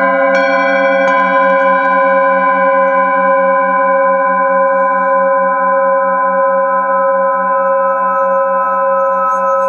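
Singing bowls ringing with several overlapping steady tones: a bowl is struck lightly twice within the first second or so, then a hand-held bowl is rimmed with a mallet, keeping the ring going. The lowest tone has a slow, even pulsing wobble.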